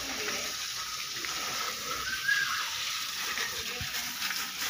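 Water running from a garden hose and splashing onto a German Shepherd's coat as the dog is rinsed during a bath: a steady splashing hiss.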